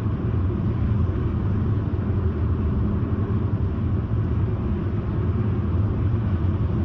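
Car cruising on the road: steady engine and road rumble that holds an even pace, with no revving.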